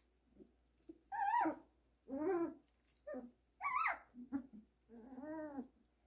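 Young Goldendoodle puppies whining and squealing: a string of short high-pitched cries that bend up and down in pitch, with softer grunts between and one lower, drawn-out whine near the end.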